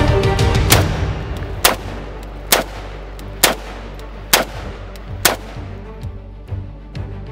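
Romanian CGR AK-47 rifle (7.62×39 mm) firing single shots, six of them about a second apart, over background music.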